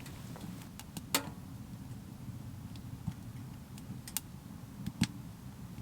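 Wood fire burning in a tent stove: a steady low rumble with scattered sharp clicks and crackles, the loudest about a second in and about five seconds in.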